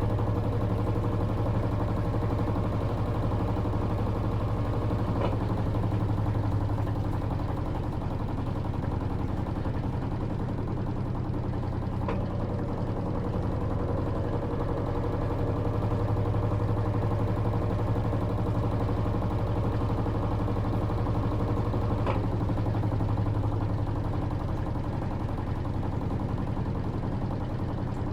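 Electrolux LT13B top-load washing machine running with a steady motor hum, and a faint click three times.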